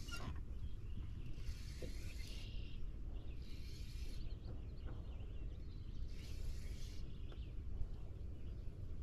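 Wind rumbling on the microphone, with soft splashes of small waves lapping against a boat hull every couple of seconds.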